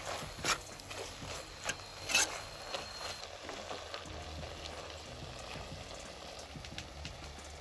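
A ladle stirring rose apple chutney in an earthenware pot, with scrapes and a few sharp knocks against the pot in the first three seconds. After that comes a softer, steady stirring with a faint sizzle of the cooking mixture.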